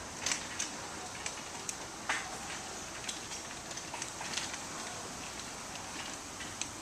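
Small residential garage door closing under a LiftMaster 371LM opener: a steady running noise with scattered light clicks and rattles as the door comes down. It closes gently.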